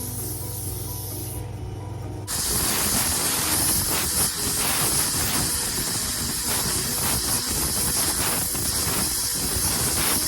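Plasma cutter gouging welds off steel. A steady hum and a short hiss of air come first; about two seconds in the arc strikes and a loud, crackling hiss of cutting takes over and carries on.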